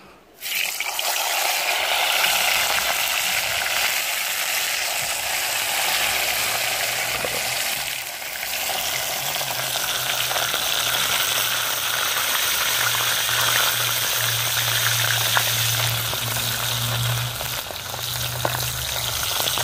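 Hot oil sizzling in a cast-iron pot as a whole fish is lowered in to deep-fry. The sizzle starts suddenly and carries on as a steady crackle.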